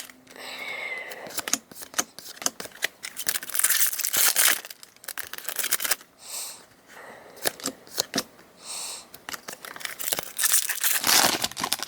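Foil wrapper of a Pokémon TCG booster pack being torn open and crinkled, with the cards inside handled: a string of rips, crackles and soft clicks.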